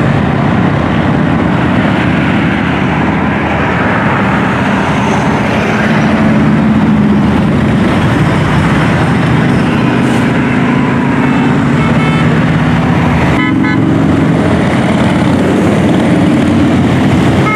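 A procession of motorcycles, big touring bikes and a trike, passing on the highway below with cars among them, their engines running loudly and steadily. A few short horn toots sound about two-thirds of the way through.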